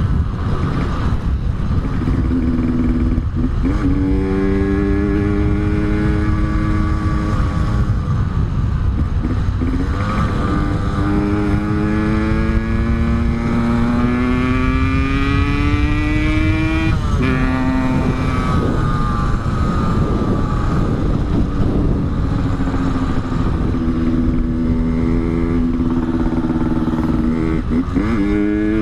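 Yamaha RX-King's two-stroke single-cylinder engine running through an aftermarket exhaust under acceleration, its pitch climbing steadily and dropping back at each gear change, about four times, with wind rumble underneath.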